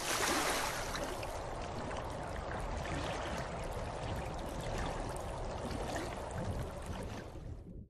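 Sound effect of running, splashing water: a steady hiss that fades out near the end.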